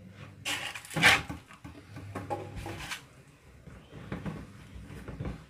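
Plastic and foam food containers being handled on a kitchen counter: a loud rustling clatter about a second in, then light taps and scrapes of a spoon in a plastic tub, over a low steady hum.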